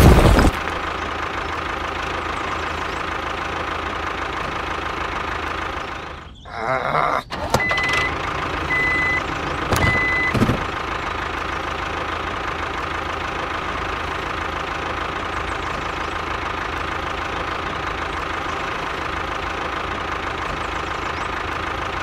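Small electric motor of a homemade toy tractor running steadily with a whine. About six seconds in the sound briefly drops out, then three short high beeps come about a second apart, with a thump at the start and another after the beeps.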